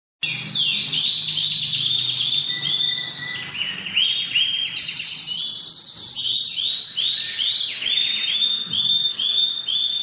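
Canary singing a fast, continuous song of trilled phrases. Each phrase is a rapid run of identical notes, and a new phrase takes over every second or so.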